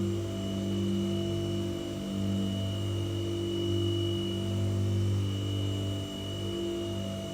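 White noise sound machine running: a steady low hum with a few fixed higher tones over a faint hiss.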